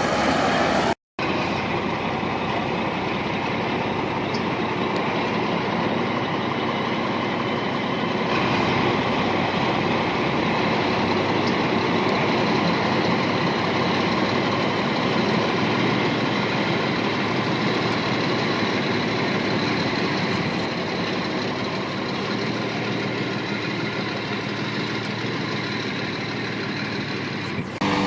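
Heavy earthmoving machinery working with its diesel engine running steadily. The sound cuts out for a moment about a second in.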